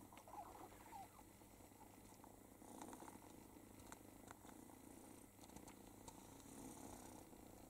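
Cat purring faintly and steadily while grooming, with a few soft clicks and rustles scattered through.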